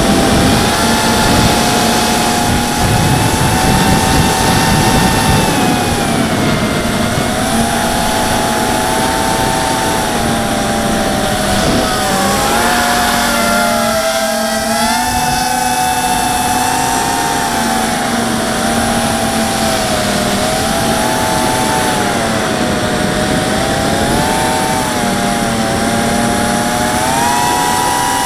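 ZMR 250 mini quadcopter's four brushless motors and propellers whining, heard from the onboard camera, with wind noise on the microphone. The whine's pitch rises and falls with the throttle as it turns and dives, dipping briefly about halfway through.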